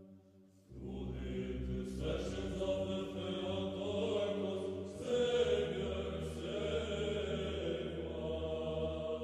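Sung church chant over a steady low drone, starting again after a brief dip less than a second in.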